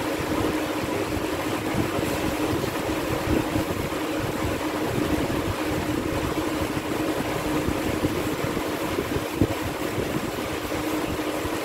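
A steady mechanical hum with a constant low tone, and one brief knock about nine seconds in.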